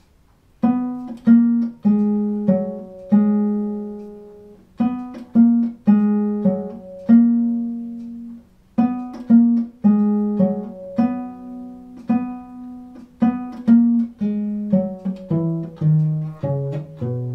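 Bass viol played with the bow: a slow exercise of separate notes, each starting crisply and ringing on as it fades. Fingers are held down for chordal fingering, so earlier notes keep sounding under the next. The line steps down to lower notes near the end.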